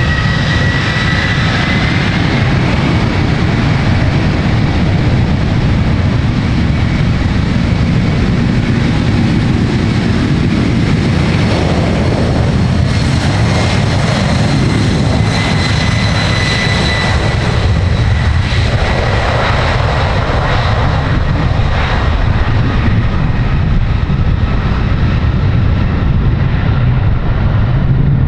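Jet airliner engines running close by: a steady, loud rumble with a high engine whine that climbs over the first couple of seconds, holds, and fades out a little past the middle.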